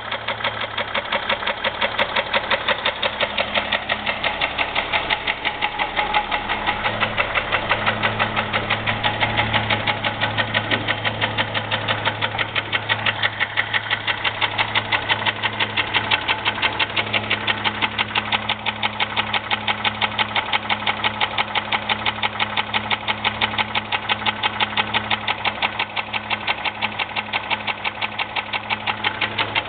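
2001 Jeep Grand Cherokee's 4.0-litre straight-six engine running with a steady, rhythmic knock from inside the engine, which the owner suspects is piston slap or rod knock.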